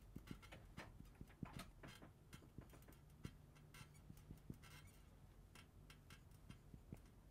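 Faint, irregular ticks and short scratches of a marker writing on a whiteboard.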